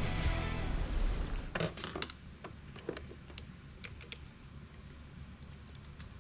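Guitar background music that stops about a second and a half in, then a scattered run of light clicks and taps from hands handling a portable battery jump-starter pack.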